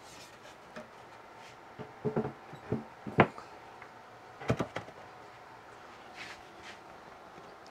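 Plywood top panel set down into the glued rabbets of a plywood cabinet box: a handful of hollow wooden knocks and clunks, the loudest a little past three seconds in, then a few lighter ones around four and a half seconds.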